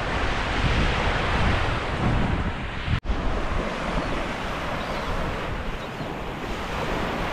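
Small waves washing up and lapping on a sandy beach, with wind buffeting the microphone as a low rumble. The sound cuts out for an instant about three seconds in.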